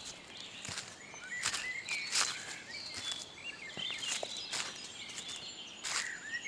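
Footsteps on the forest floor, a crunchy step roughly every second, with small birds giving short chirps that slide in pitch.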